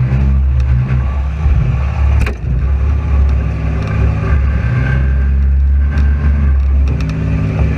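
Front-wheel-drive demolition derby car's engine running hard and revving. A few sharp knocks of impact cut through it, the clearest about two seconds in and more near six and seven seconds.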